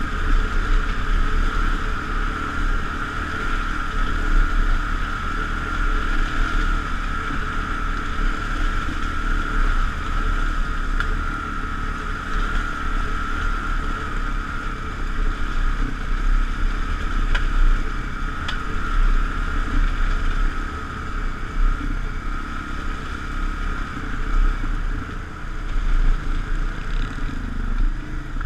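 Dual-sport motorcycle exhaust at a steady cruise, heard over wind noise, with a steady high whine running through it.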